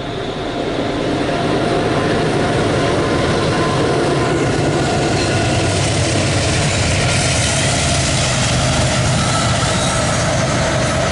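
Norfolk Southern intermodal freight train passing: the rumble grows louder over the first two seconds, then the train runs by steadily and loudly.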